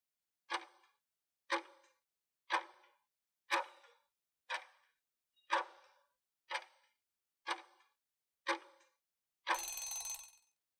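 Countdown timer sound effect: nine sharp clock-like ticks, one a second, then a denser alert sound lasting just under a second as the count runs out.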